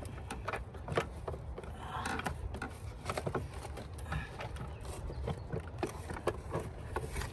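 Irregular clicks, knocks and scrapes of a K&N air filter being set and pressed into a plastic engine air-filter box, over a steady low background rumble.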